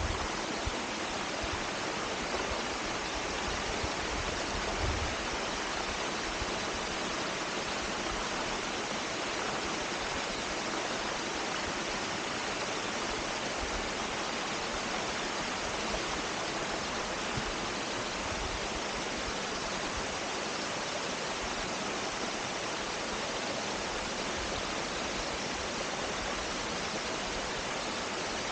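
Small woodland stream cascading over rocks: a steady rush of water.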